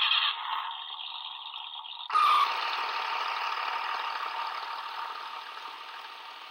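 Road Rippers Lightning Rods toy Chrysler 300 playing its electronic engine sound effect through its small speaker, with the lights flashing. About two seconds in a louder engine sound starts and then slowly fades.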